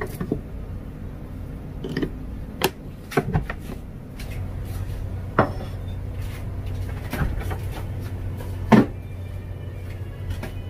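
Kitchen handling sounds: a plastic rice paddle knocking in a rice cooker's inner pot, a ceramic plate set down on the counter, and a refrigerator door opened. Heard as a series of separate knocks and clicks over a low steady hum, the loudest near the end.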